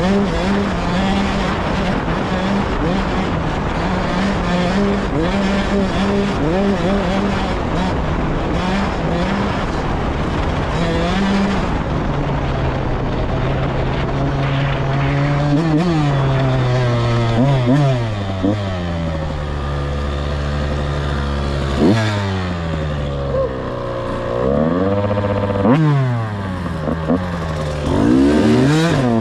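Off-road vehicle's engine running at steady high revs under a loud rushing noise for about twelve seconds, then dropping in pitch and being revved up and down several times.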